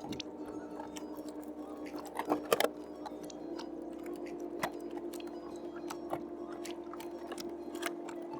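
Irregular soft crunching and clicking, loudest in a short cluster about two and a half seconds in, over a steady low hum.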